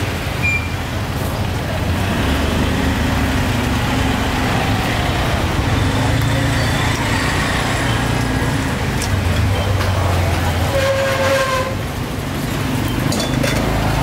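Street traffic: motor vehicle engines running steadily, with a few short clicks and a brief pitched tone like a horn near the end.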